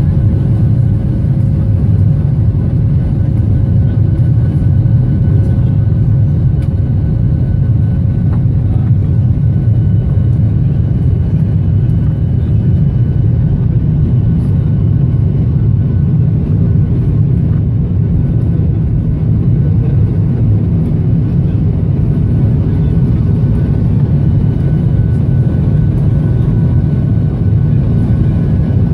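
Jet airliner cabin noise during the climb after takeoff, heard from a window seat over the wing. The engines and airflow make a loud, steady low rumble, with a few faint, steady whining tones above it.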